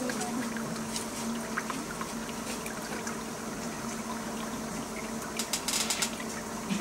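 Steady trickle of running water under a low steady hum, with a short cluster of crackling clicks about five to six seconds in.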